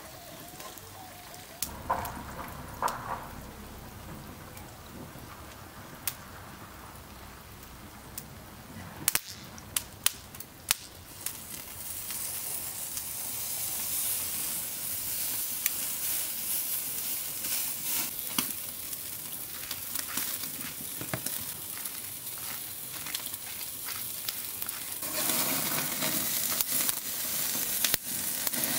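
Beef steak sizzling and crackling on a hot charcoal grill grate. It starts about a third of the way in, after a few sharp metallic clicks of tongs, and grows louder near the end. Before that there are only faint, quiet sounds.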